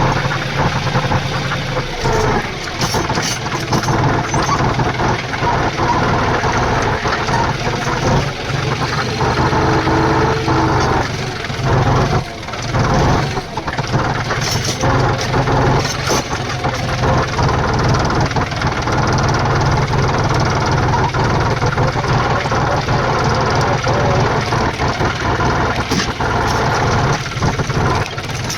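Tractor engine running steadily, with a few short knocks now and then.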